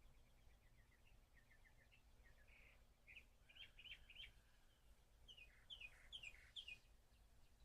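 Faint bird chirping: quick series of short notes, with louder sliding chirps in the second half.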